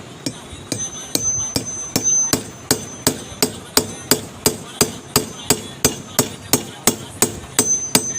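Hammer striking a metal shaft set on top of a new bush to drive the bush into the base of a mixer's chutney jar: an even run of sharp metallic knocks, about three a second, with a high ring after some blows.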